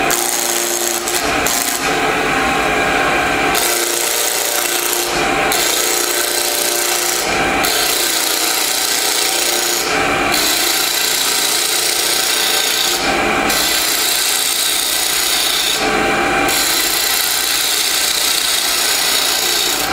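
Bowl gouge cutting a square bocote blank spinning on a wood lathe, roughing off its corners: a continuous rough scraping of steel on wood over the lathe's steady hum. Brief breaks come every few seconds as the gouge comes off the wood between passes.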